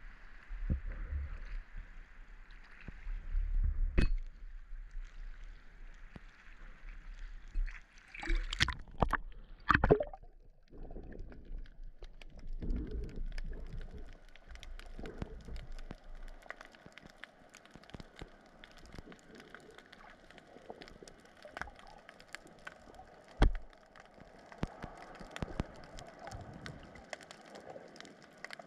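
Seawater sloshing and lapping around a waterproof camera at the ocean surface, with a low wind rumble, then loud splashing and gurgling as it goes under about eight to ten seconds in. After that, the muffled steady hiss of being underwater, with many faint scattered clicks and one sharp knock a little past the twenty-second mark.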